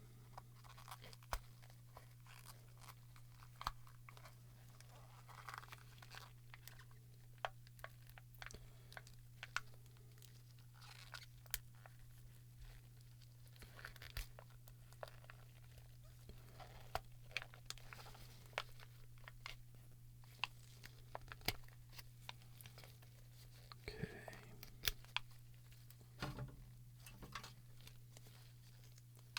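Plastic parts of an inkjet cartridge being pried and picked apart: scattered small clicks, cracks and crunches, over a steady low hum.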